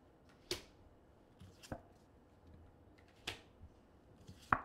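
Tarot cards being laid down one at a time onto a spread of cards, making four short, sharp snaps a little over a second apart.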